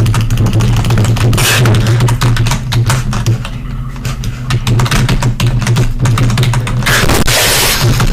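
Computer keyboard typing, heavily distorted: rapid key clicks crushed into a harsh, clipped racket over a steady low hum. There is a louder noisy burst about seven seconds in.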